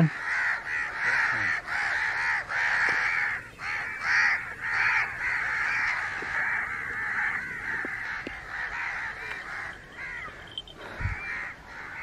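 A large flock of crows cawing, many harsh calls overlapping at once, thinning out near the end.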